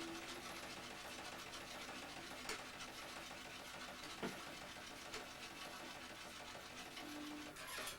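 Quiet room tone: a faint steady mechanical hum with a few soft clicks.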